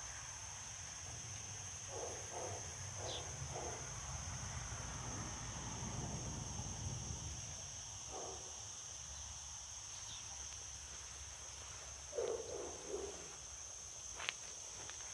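Faint, steady high-pitched insect drone, with short squeaks and whimpers from month-old Dalmatian puppies feeding in a group. A sharp click comes near the end.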